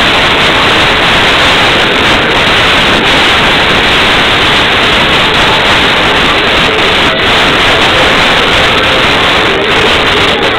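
Loud, steady rushing noise with no distinct events.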